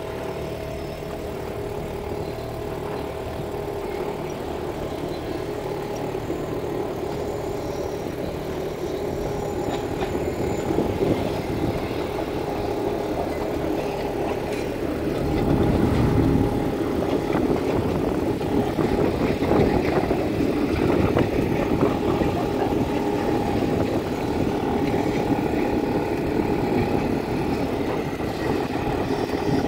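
Steady engine hum with a constant pitch, mixed with a rushing wash of water and wind that gets louder about halfway through.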